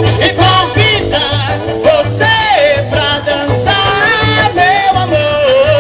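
Live forró band music: a gliding melody line over an even, repeating bass beat of about three pulses a second.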